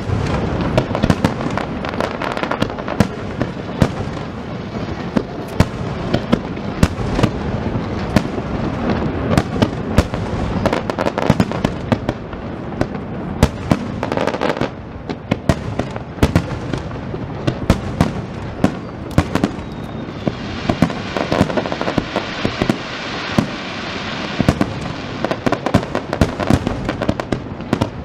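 Computer-fired starmine fireworks barrage: shells bursting in rapid succession, a dense run of sharp booms and cracks over continuous crackling. It eases briefly about halfway through, then picks up again.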